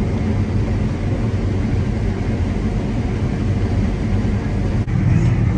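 Vehicle engine running steadily with a low rumble, a little louder near the end.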